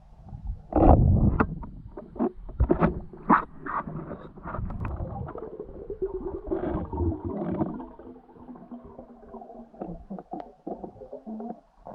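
Muffled underwater gurgling with many sharp knocks and clicks, loudest in the first few seconds, as heard from a camera underwater.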